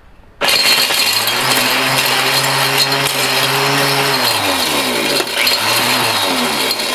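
Mighty Mill hammer-type ore crusher starting up and shredding a batch of electronic connectors. Its motor hum rises and holds under a loud clattering grind. About four seconds in, and again near six, the motor pitch sags and recovers as the charge loads it.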